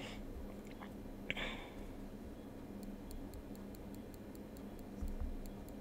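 Faint room tone: a low steady hum with faint, regular ticking.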